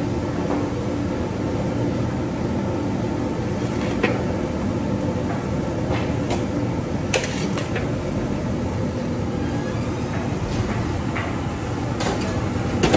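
A long steel spatula scraping and clanking against a large iron wok as a heap of noodles is tossed, a sharp clink every few seconds. Under it runs a steady low roar from the gas burner and kitchen equipment.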